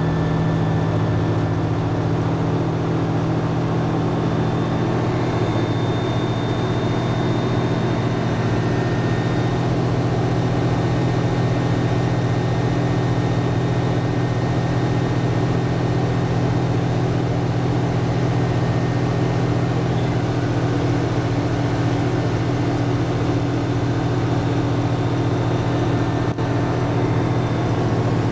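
Ultralight aircraft's piston engine and propeller running steadily at high power through a takeoff and climb, heard from inside the cockpit.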